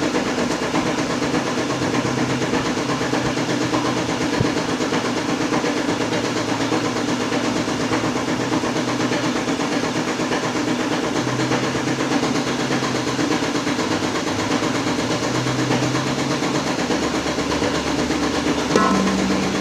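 A motor-driven machine running steadily after starting up, with a continuous hum and a noisy hiss. Near the end its tone shifts and a deeper hum sets in.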